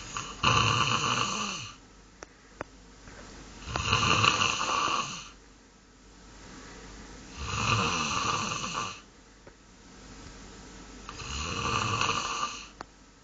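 Goose making loud snore-like sounds: four snores about every three and a half to four seconds, each building from a quieter intake of breath.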